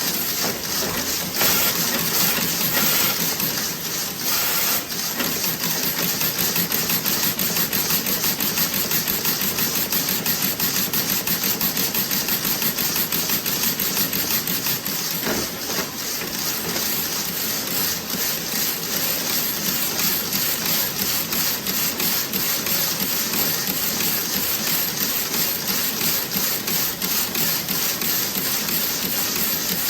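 Toe-sock knitting machine running, a dense, fast, even clatter of its mechanism, with a brief hiss about two to four seconds in.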